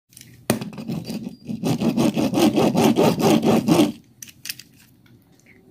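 A plastic toy worked by hand makes a rapid rasping, ratchet-like noise, starting with a sharp click about half a second in and stopping about four seconds in.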